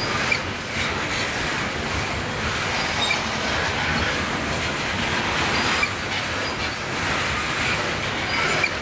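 Norfolk Southern coal hopper cars rolling past: a steady noise of steel wheels on rail, with brief high-pitched wheel squeals here and there and a few sharp knocks.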